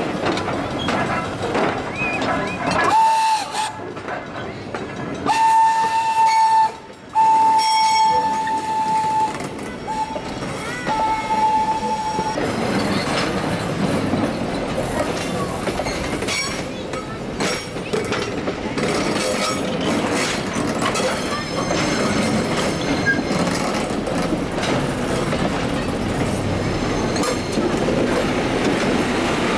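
A train whistle sounds one steady note in several blasts: a short one about three seconds in, then a string of longer ones ending about twelve seconds in. After that a passenger coach rolls past on the track, its wheels clattering over the rails.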